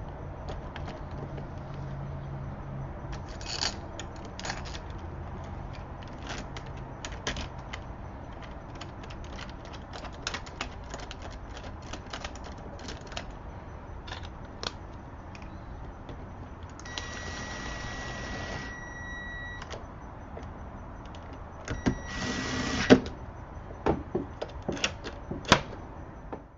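Clicks, knocks and light metallic rattling of deadbolt lock hardware and keys being handled and fitted, with two short whirring bursts about two-thirds of the way through.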